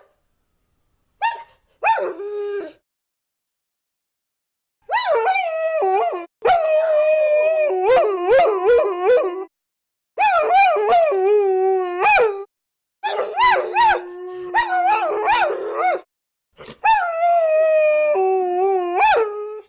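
Several dogs howling together, their long wavering howls overlapping with a few short yips. The howls come in four or five bursts of a few seconds each, broken by dead silence.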